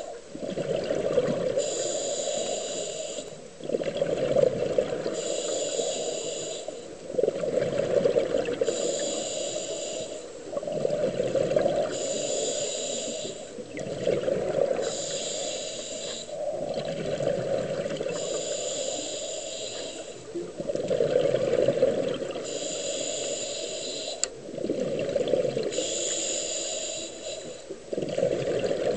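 Scuba diver breathing through a regulator underwater, heard through an underwater camera housing: a hissing inhale alternates with a bubbling exhale, about one breath every three to four seconds, roughly nine breaths in all.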